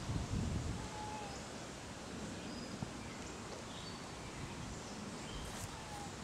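Outdoor garden ambience: a steady hiss with a few faint, short bird chirps scattered through it, and a brief low rumble at the start.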